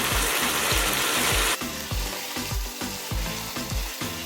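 Seasoned chicken curry frying and sizzling in hot oil in the pot; the sizzle drops off sharply about a second and a half in.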